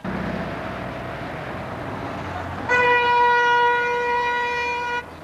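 Road traffic running, then about halfway through a vehicle horn sounds one long steady note for a little over two seconds and cuts off shortly before the end.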